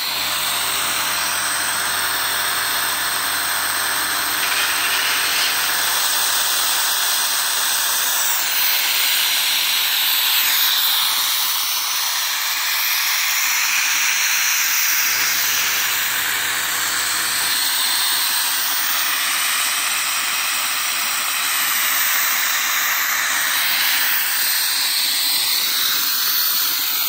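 Steam hissing from a homemade propane-fired boiler built from a coil of copper tubing: a continuous hiss that holds steady throughout.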